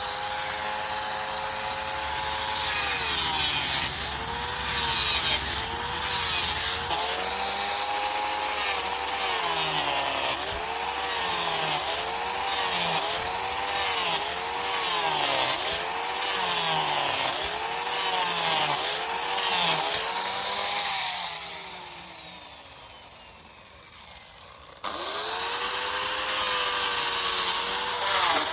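Angle grinder cutting into wood, its motor pitch rising and dipping about once a second as the disc is pressed in and eased off with each stroke. About three quarters of the way through it is switched off and spins down with a falling whine, then starts up again abruptly.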